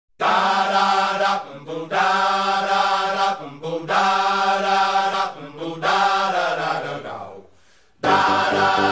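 Intro music of long held chords in three phrases with short breaks between them; the last chord slides down in pitch and fades out. A new, livelier music cue starts near the end.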